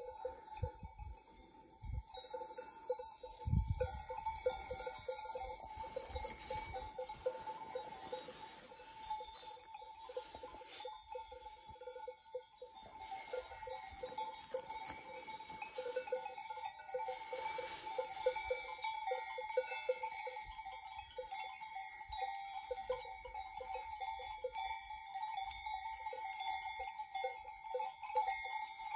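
Bells on a grazing sheep flock clanking and jingling without a break, several bells sounding together. A few dull thumps near the start.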